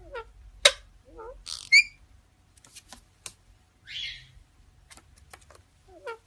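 Parrot making a string of sharp clicks, short squawks and quick warbling whistles, with the loudest click a little under a second in and a whistled warble near two seconds.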